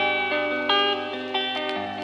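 Background music: sustained, overlapping instrumental notes, with new notes coming in about every half second.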